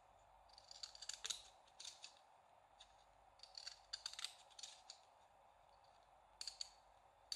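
Wave-edge craft scissors snipping along the edge of a piece of cardstock: quiet crisp cuts in quick runs of several snips, with short pauses between the runs.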